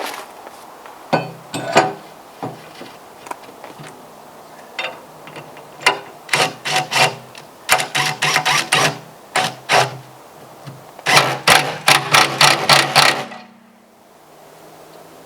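A snow-ski wear shoe being fitted onto the steel lip of a Kubota loader bucket: bursts of quick sharp knocks, several a second, which stop abruptly near the end.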